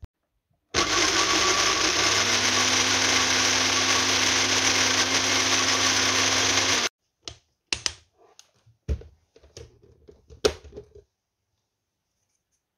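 Uten personal blender motor running steadily for about six seconds, blending garlic, sesame seeds and mayonnaise into a thick sauce, then cutting off abruptly. A few scattered knocks and clicks follow.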